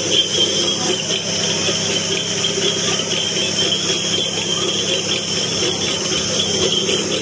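Sugarcane juice crushing machine running, the ghungroo bells fixed to it jingling without a break over a steady low hum.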